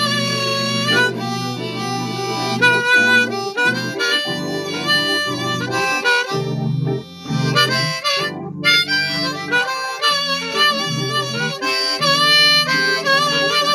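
Diatonic harmonica playing a slow blues line of held and bent notes over low keyboard chords.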